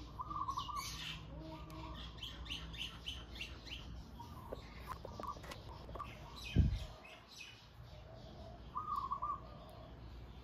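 Small birds chirping and warbling in short repeated phrases, with light handling clicks and a single low thump about two-thirds of the way through.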